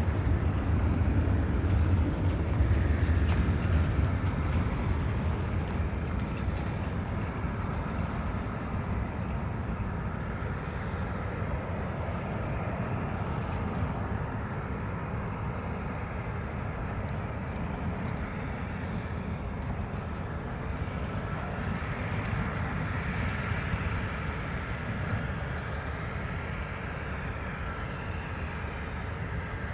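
Jet airliner engines of a Boeing 737-800: a steady rumble, loudest in the first few seconds, then slowly fading. A faint whine glides in pitch in the second half.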